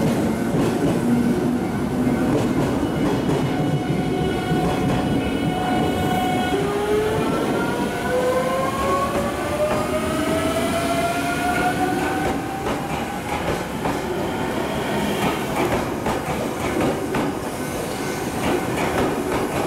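JR 383 series electric multiple unit pulling out of the platform. Its motor inverter whine starts about six seconds in and climbs steadily in pitch for several seconds as the train gathers speed, over the rumble of the wheels as the cars roll past.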